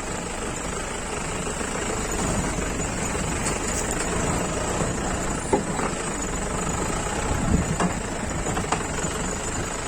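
Jeep engine running steadily, with a few sharp knocks or bangs partway through.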